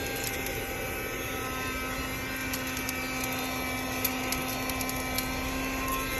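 1973 Dynamic handheld car vacuum running steadily, its small motor and fan giving a steady hum with a faint whine, with scattered light ticks of grit being sucked up into it.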